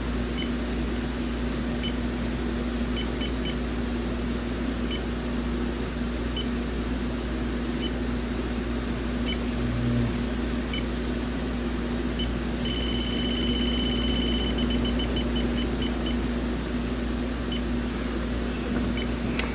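Electronic refrigerant leak detector set for R134a giving scattered short beeps, then about 13 seconds in a held tone followed by a quick run of beeps, its alarm for refrigerant picked up at the probe tip. A steady hum runs underneath.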